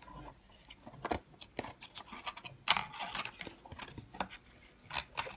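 Cardstock and paper being handled: irregular rustles, slides and light taps of card as a small tag and card flaps are moved, with the sharpest tap about two and a half seconds in.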